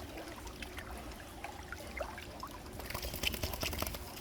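Mountain stream water flowing and trickling, with scattered small splashes that come thicker about three seconds in.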